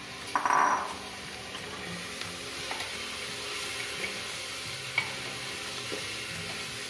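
Metal spoon stirring washed rice and moong dal into vegetables frying in oil in a pressure cooker: a steady sizzle with scraping, a few sharp clicks of the spoon against the pot, and a brief louder scrape about half a second in.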